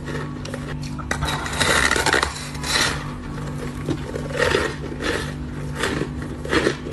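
Close-miked chewing of frozen ice: irregular crunching bursts, heaviest about two seconds in, with further crunches later. A steady low hum runs underneath.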